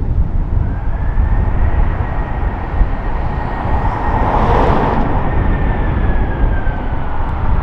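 Jet engines of an Airbus A330-300 airliner on landing: a rushing noise that swells to its loudest about halfway through and then eases, with a thin steady whine above it that sags slightly in pitch as it goes by. A steady low rumble lies underneath.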